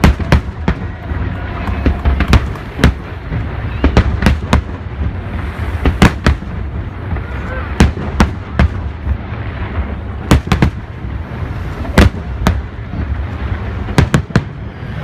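Aerial firework shells of a Japanese Nagaoka-style display bursting one after another, sharp bangs at irregular intervals about two a second over a continuous low rumble, with faint crowd voices.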